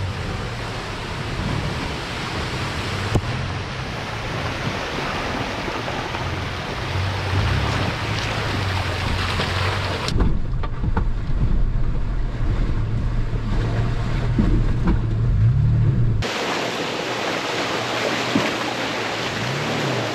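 Off-road SUV engines running low as the vehicles wade up a shallow creek, over a steady rush and splash of flowing water. The engine drone is heaviest in a stretch from about ten to sixteen seconds in, with the water rush fuller before and after.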